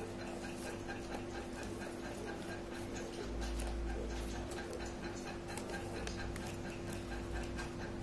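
Light clicks and rustling of white paper being folded and creased by hand, over a steady low hum.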